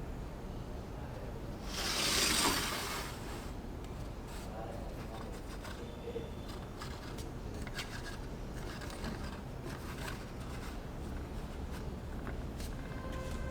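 Small plastic building bricks being handled, giving scattered light clicks, with one brief rubbing rustle about two seconds in that is the loudest sound.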